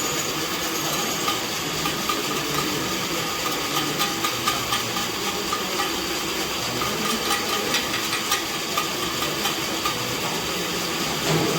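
Waste-plastic extruder machine running: its single-phase AC motor turning the screw through a chain drive and worm gearbox, a steady hiss and hum with scattered light clicks.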